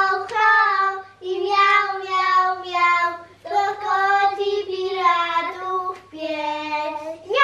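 A child singing a simple song in short phrases of held notes, mostly on the same few pitches.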